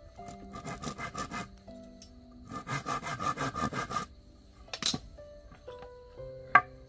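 Hand saw cutting across a wooden plank in two runs of quick, rhythmic strokes, with a sharp click and then a knock near the end.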